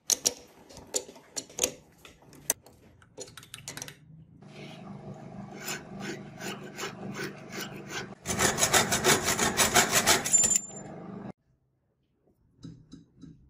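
A file rasping back and forth against a steel rod spinning in a metal lathe, over the lathe's steady hum; the strokes grow louder and quicker about eight seconds in, then stop suddenly about three seconds later. Irregular clicks and taps come first.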